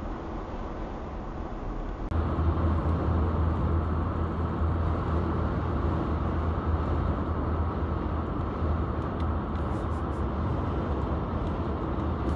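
Steady road and engine noise heard from inside a moving car, a low rumble with tyre hiss. It gets louder and deeper about two seconds in.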